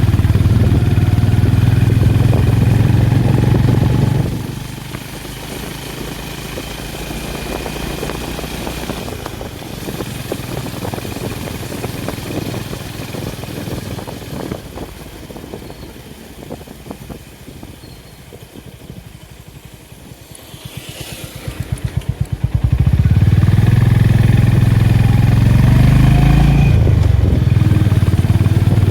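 Honda H'ness CB350's single-cylinder engine and exhaust under way on the road: pulling loud at first, then throttle closed about four seconds in for a long, quieter stretch with the slow individual thumps of the single audible, then opened up again loud near the end.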